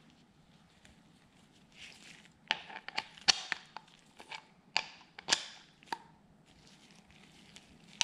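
Irregular sharp metal clicks and clinks of a ratchet, socket and torque angle gauge being fitted together and set on a connecting rod bolt, a cluster of them lasting a few seconds after a quiet start.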